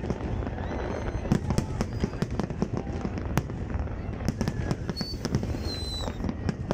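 Aerial fireworks display: a dense, irregular run of bangs and crackles from many shells bursting in quick succession.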